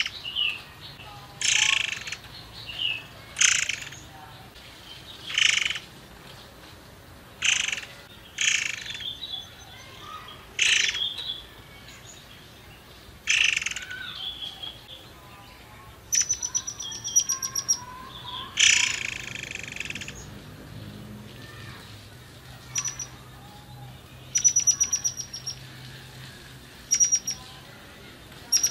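Caged murai air singing: loud, harsh phrases about a second long every second or two, then from about halfway rapid high ticking trills with one long harsh phrase among them.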